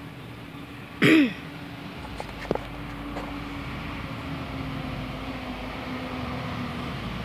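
A brief loud cough or throat-clear about a second in. Then a vehicle's steady low engine hum grows slowly louder as it approaches.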